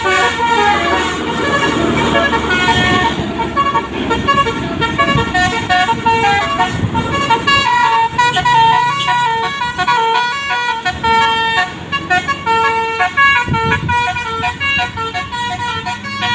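Bus telolet horn, a multi-tone musical horn, playing a tune of quick stepped notes, over the bus's engine running.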